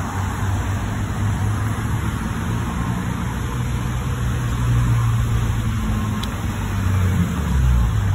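City street traffic close by: car engines running and tyres on the road, with a low engine hum that swells about five seconds in and again near the end.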